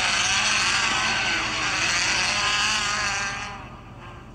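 Midget race car engines running hard as the cars pass, their pitch wavering, loud for about three seconds and then fading. Heard played back through a phone's speaker.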